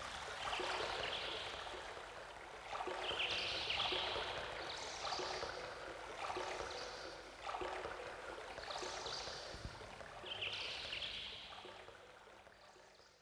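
Running water like a stream, swelling in washes about every second and a half, with faint soft music under it. It fades out near the end.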